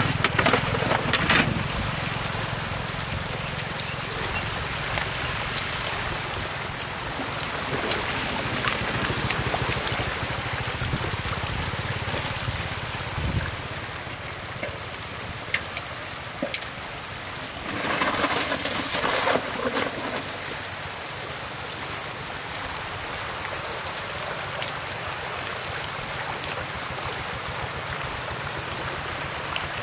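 Shallow floodwater rushing steadily across the ground, with bursts of splashing in the water near the start and again a little past the middle.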